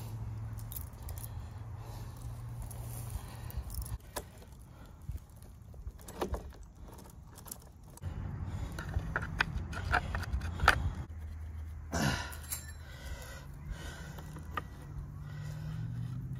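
Steel saw chain jangling and clicking as it is handled and fitted around a chainsaw's guide bar and sprocket, with scattered sharp metal clicks from the links.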